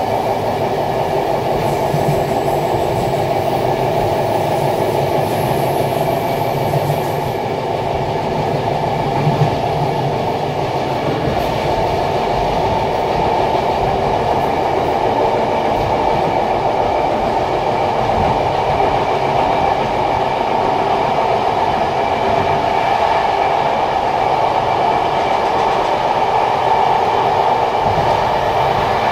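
Passenger train coach running along the rails, heard from inside the carriage: a steady rumble and rattle of wheels on track and the car body.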